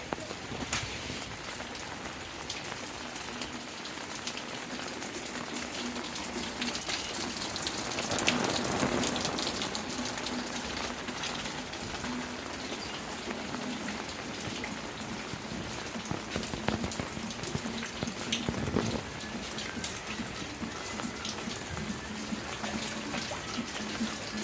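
Steady rain falling, with many separate drops striking close by; it grows heavier for a couple of seconds around a third of the way in. A faint steady low hum runs underneath.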